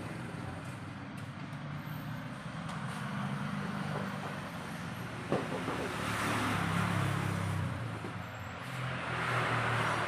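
Motor vehicle engine noise with two swells in level, about six and nine seconds in, and a single click near the middle.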